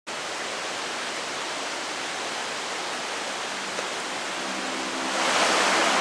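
Mountain stream rushing steadily, an even hiss of running water that grows louder about five seconds in. A faint low steady hum joins about halfway through.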